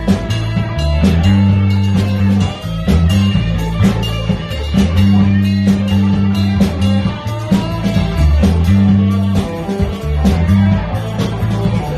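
A live band playing electric guitar over a drum kit, with deep, shifting bass notes and a steady drum beat.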